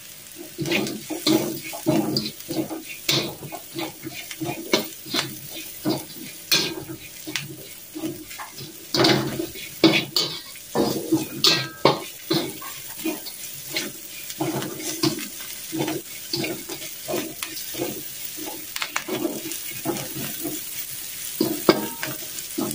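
Slotted metal spatula repeatedly scraping and knocking against a wok while stir-frying, in irregular strokes about one to two a second, with oil sizzling underneath.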